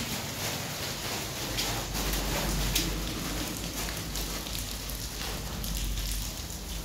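Water falling and splashing down a concrete sewer overflow shaft: a steady, rain-like rushing, with a deeper rumble joining about a second and a half in.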